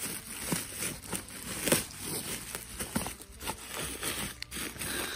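A hand brushing and pulling away dry pine needles, grass and leaf litter, a crackling rustle with irregular snaps, one sharper snap a little under two seconds in.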